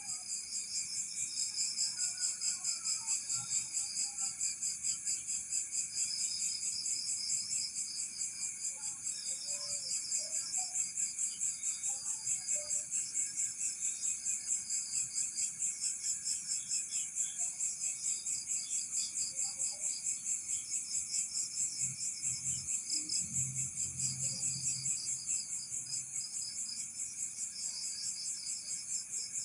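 Chorus of crickets chirping steadily, pulsing about three times a second. A faint low hum rises and fades about three-quarters of the way through.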